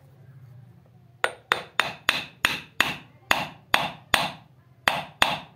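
A hammer striking metal eleven times in a fairly even series, about three blows a second, each blow ringing briefly.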